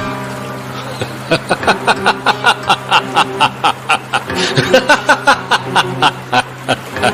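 Background music: a steady low drone under a fast, even run of short pitched notes, about four to five a second, starting about a second in.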